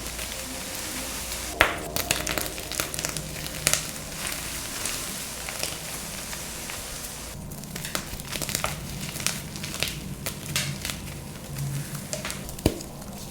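Dyed gym chalk being crushed and crumbled, a dense run of dry, irregular crunches and crackles with a few sharper, louder cracks.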